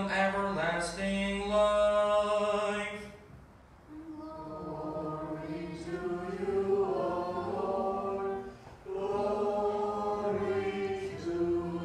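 Unaccompanied Byzantine-rite liturgical chant sung by a man's voice in long held phrases, with a brief pause about three seconds in and another near eight and a half seconds.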